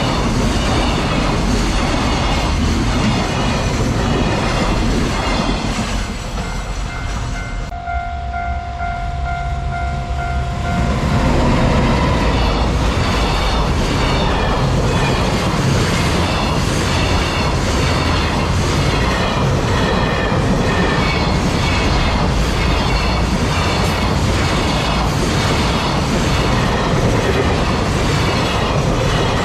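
Freight train wagons rolling past close by at a level crossing, with a steady rhythmic clatter of wheels over rail joints. A few seconds in, the rumble briefly drops and the crossing's warning bell rings through in even repeated dings, before the heavy clatter picks up again.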